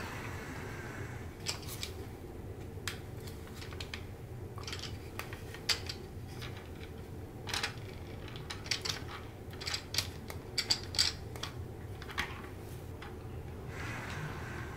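Light plastic clicks and taps from a toy train set's parts being handled, irregular and bunched near the middle, over a steady low hum.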